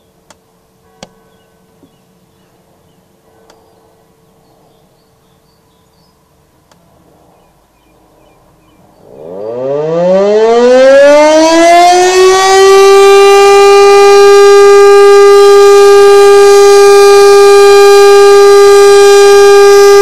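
German rooftop electric motor siren, which the uploader takes for an Elektror L141, sounding a test of the fire alarm signal. After about nine quiet seconds with a few faint clicks, it spins up with a rising wail that levels off after about three seconds into a loud, steady tone.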